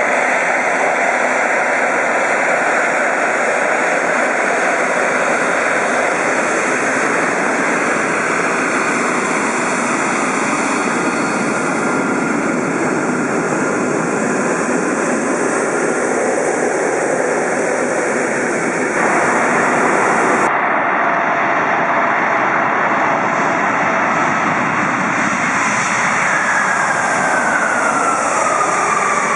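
Airbus A380 jet engines running as the airliner taxies and rolls along the runway, loud and steady, with sudden changes in the sound about 19 and 20 seconds in. Near the end a whine falls steadily in pitch as the aircraft passes.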